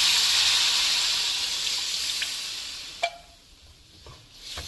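Tamarind water hitting hot oil and fried masala in a non-stick pan, sizzling loudly and dying away over about three seconds. There is a single sharp knock about three seconds in.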